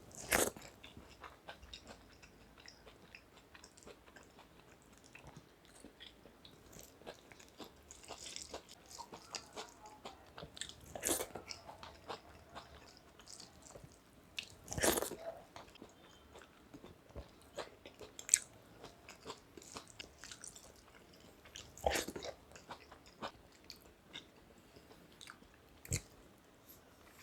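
A person eating a rice meal: faint chewing and many small wet clicks of food being mixed and eaten. A few louder sharp knocks come at intervals.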